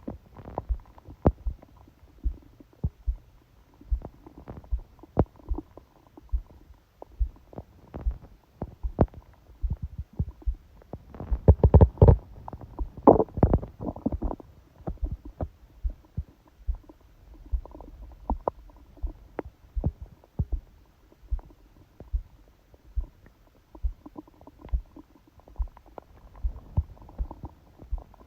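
Stomach gurgling and rumbling picked up by a phone pressed against the belly, with a louder run of gurgles about eleven to fourteen seconds in. Under it a loud, quick heartbeat thuds a little more than once a second, heard this strongly because the phone is pressed on the abdomen.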